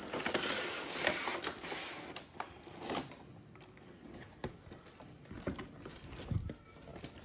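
Clear plastic blister packaging and a cardboard box being handled: crinkling rustle with scattered light clicks and knocks, busiest in the first few seconds and sparser after.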